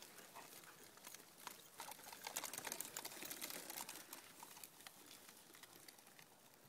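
Faint, rapid crackling and rustling of footsteps through dry grass and brush, busiest around the middle.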